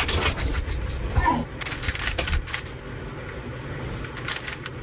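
A plastic 3x3 Rubik's cube being solved by hand, its layers turned in quick succession with a run of irregular clicking and clacking.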